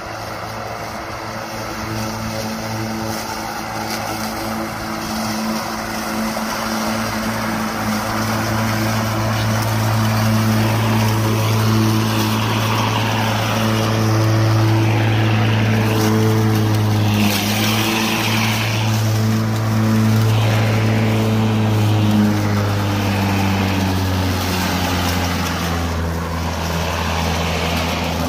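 Makita 18V X2 (36V) brushless cordless lawn mower running and cutting tall grass: a steady hum from the spinning blade over the hiss and rustle of grass being cut, growing louder over the first several seconds. Near the end the pitch drops a little as the blade slows in the heavier grass.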